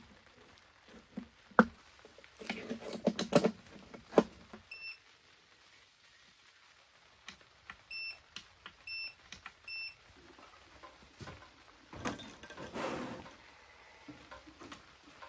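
Portable power station beeping as a cable is plugged in and its buttons are pressed: one short high electronic beep about five seconds in, then four more in quick succession a few seconds later. Sharp clicks of the plug and handling come before the beeps, and rustling and clanking of a metal camp stove being handled follow near the end.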